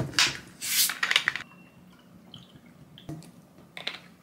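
Plastic bottle of Fanta soda being twisted open: the carbonation escapes in several sharp hissing spurts over the first second and a half, followed by a few small clicks of the cap and bottle near the end.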